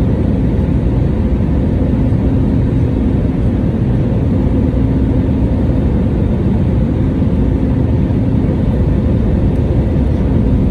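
Steady low rumble of a jet airliner's engines and airframe, with a steady hum running through it.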